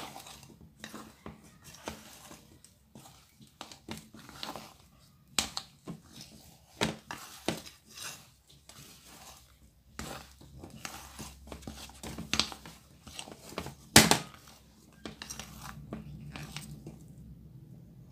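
Donut dough being mixed by hand in a bowl: irregular knocks and clicks of the hand and dough against the bowl, with soft squishing of the dough. The sharpest knock comes about 14 seconds in.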